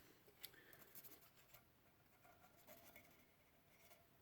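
Near silence: room tone with a few faint, light ticks and rustles of small parts being handled.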